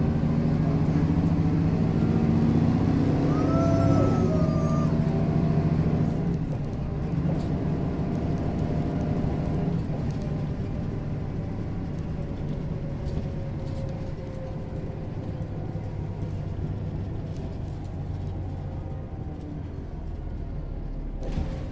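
Mercedes-Benz O405 city bus's diesel engine running, loudest over the first six seconds and then easing off to a steadier, lower level.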